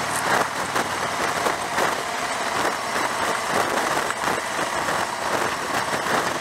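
Cruiser motorcycle's engine running at a steady road speed, heard under a constant rush of wind over a rider-mounted microphone.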